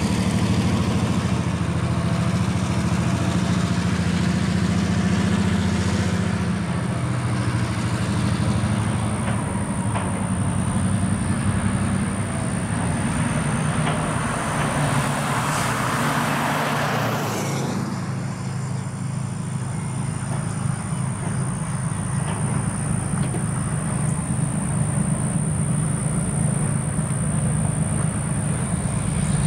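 Diesel switcher locomotive's engine running steadily as it moves a train of covered hopper cars. About halfway through, a pickup truck passes close by, adding a rush of tyre and engine noise that swells and fades over a few seconds.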